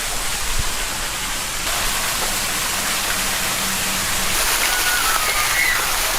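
Steady hiss of falling rain, an even wash of noise with no distinct drops standing out.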